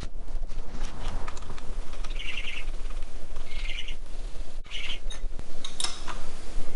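A bird chirping in three short trilled bursts, over scattered light clicks and knocks of metal parts and tools being handled, and a steady low hum.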